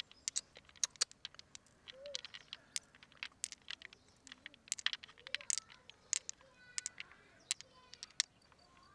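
Pearls clicking and clinking against each other as they are plucked from wet mussel flesh and dropped into a palm: many short, sharp, irregular clicks with small wet squelches.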